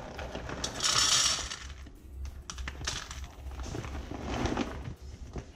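Dry dog kibble poured from a bag into a stainless steel bowl, the pieces rattling against the metal, loudest in a rush about a second in, followed by scattered clicks and a smaller pour.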